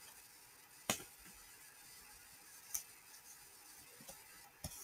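Quiet room tone broken by a few faint clicks: a sharp one about a second in, a fainter one near three seconds, and a short soft thump near the end.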